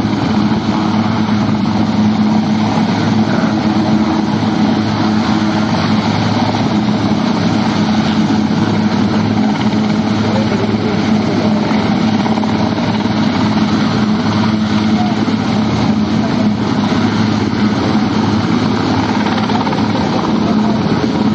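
Westland Sea King helicopter hovering low over water, a steady rotor and turbine engine noise that holds level throughout.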